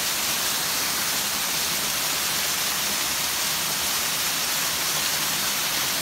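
Small waterfall cascading over rocks, a steady rushing splash of water.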